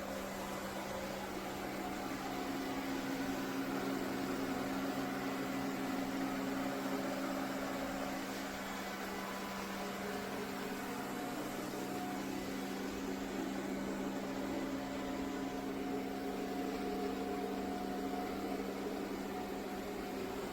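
ECOVACS Deebot X9 Pro Omni robot vacuum running: a steady motor and fan hum with two low tones over a whooshing noise, a little louder between about two and eight seconds in.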